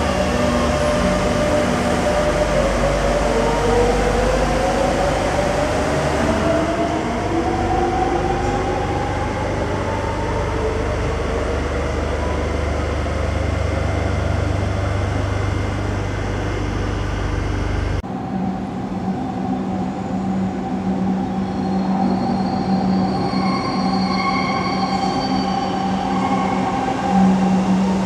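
Madrid Metro electric train pulling out of an underground station, its traction motor whine rising in pitch as it gathers speed over a low rumble. After a cut, a train running into the station with a steady hum and faint high wheel squeals.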